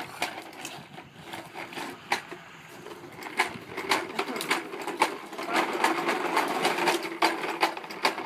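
Toy lawn mower rattling and clicking as a small child pushes it, with a steady hum joining about three and a half seconds in.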